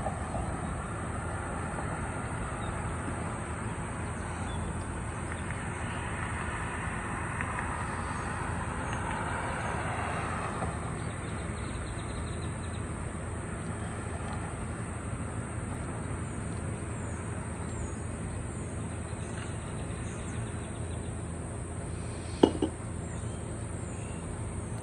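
Outdoor road-traffic ambience: a steady low rumble with the hiss of passing vehicles swelling and fading over the first ten seconds or so. Faint short high chirps come near the end, and a single sharp click sounds about twenty-two seconds in.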